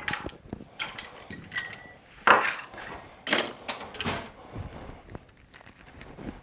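Irregular metallic clanks and knocks, a few ringing briefly, as the rear transfer assembly is worked off a Subaru TY752 five-speed manual transmission case. The sounds thin out near the end.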